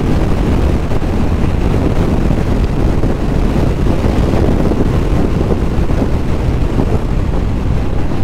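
Wind rushing over the microphone of a Triumph Bonneville T120 ridden fast, with its 1200 cc parallel-twin engine running under the wind noise.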